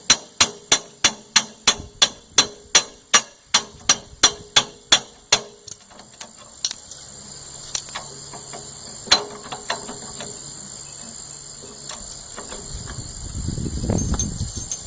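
Hand tool working a nut onto the burred threads of a Ford tractor lift-arm bolt: evenly spaced metallic clicks, about three a second, for some five seconds, then a few scattered clicks. A low rumbling noise comes in near the end.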